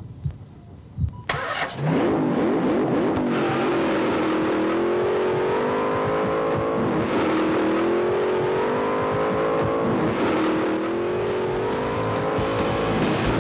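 A few soft thumps, then a car engine bursts in about a second in and revs up sharply. It holds at high revs, its pitch wavering slightly and dipping briefly several times.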